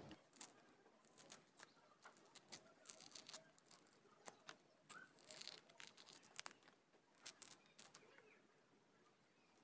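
Faint, irregular snapping and ripping of orange peel being torn off the fruit by hand, stopping near the end.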